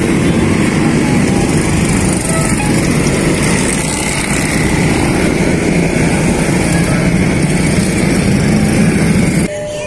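Dense traffic of many small motorcycles and scooters riding past close by, their engines running together in a steady drone. It cuts off suddenly near the end.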